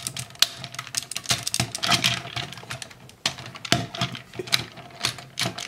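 Hard plastic parts of a DX Go-Buster Oh combining robot toy clicking and clattering as they are handled and pressed together, an irregular run of small sharp clicks.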